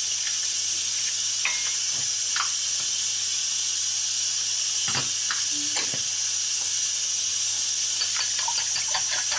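An egg cracked into a glass bowl and salted, with a few light taps and clicks, then a quicker run of fork clinks against the glass near the end as the eggs start to be beaten. Under it runs a steady hiss, the steam of a pressure cooker at pressure.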